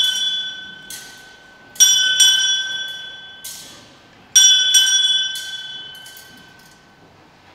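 Altar bells (sanctus bells) rung at the elevation of the consecrated host, in repeated shakes about two and a half seconds apart; each shake is a quick cluster of strikes whose bright ringing fades slowly.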